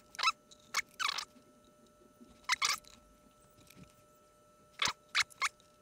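Short papery crinkles and rustles from fingers working a small piece of self-adhesive cork and its paper backing: about eight brief crackles in small groups.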